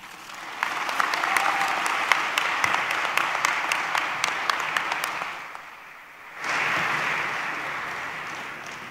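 Audience applauding, dense clapping that fades about five seconds in, picks up again abruptly a second later and dies away near the end.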